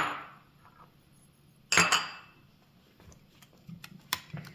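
Small hard clinks and taps of tools and small parts being handled on a work surface: a sharp clink at the start, a louder ringing one nearly two seconds in, then several light ticks near the end.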